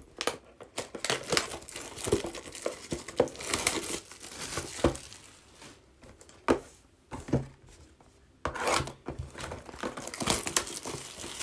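Plastic wrapping and card packaging crinkling and tearing in irregular bursts with sharp clicks, as a trading card hobby box is worked open by hand.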